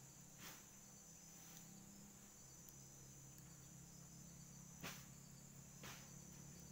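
Faint, steady high-pitched insect drone, with three short crackles from the small wood fire burning under the cooking pot: about half a second in, and twice near the end.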